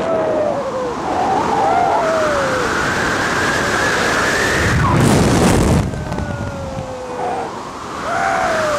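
Wind rushing over the microphone during a tandem descent under an open parachute canopy, with several drawn-out whoops that slide down in pitch. A louder rush of wind comes about five seconds in.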